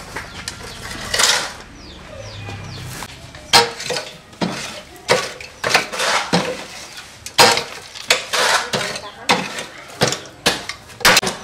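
Long-handled tool scraping and pushing damp concrete mix across the steel feed tray of a concrete block-making machine, with gritty metal-on-metal strokes. The strokes start a few seconds in and repeat about once or twice a second.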